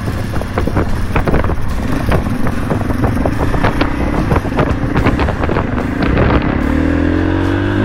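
Two off-road motorcycles pulling away over a loose gravel track, their engines revving as they ride off, with wind buffeting the microphone.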